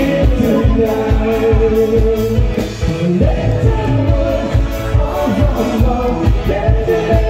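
Dance music with a singer over a steady beat.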